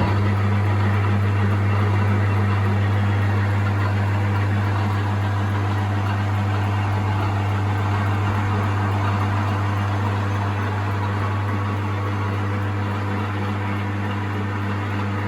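Metal lathe switched on, then running steadily at about 300 RPM with a strong motor hum, and a rough grinding noise over it as a carbide tool takes a facing cut across a cast iron plate.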